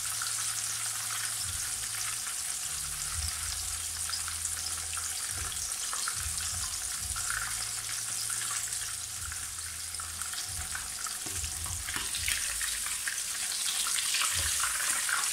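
Breaded chicken schnitzel frying in a pan of hot oil: a steady sizzle full of small crackles. Near the end, a few clicks and scrapes of metal tongs in the pan as the cutlet is turned over.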